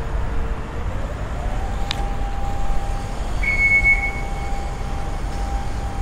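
City street ambience: a low rumble with a steady tone that slides up in pitch a little over a second in and then holds, a sharp click about two seconds in, and a brief high whistle-like tone a little past halfway.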